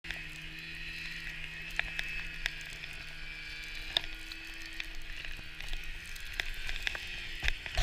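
Snowmobile engine running at a steady pitch while towing a skier on a rope, with a hiss of skis over snow and scattered clicks, and a louder knock near the end.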